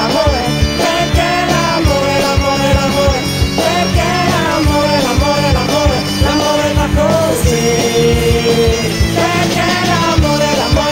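Upbeat rock song with a sung vocal over a fast, steady drum beat.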